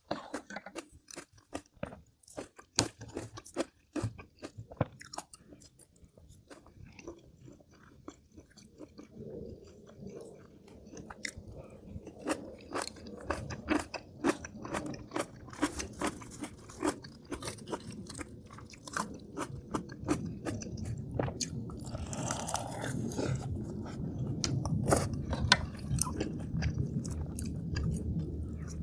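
Close-miked eating of kimchi and scorched-rice porridge: crisp crunching bites and chewing, made of many quick sharp clicks at first, then giving way to fuller, wetter chewing that grows louder in the second half.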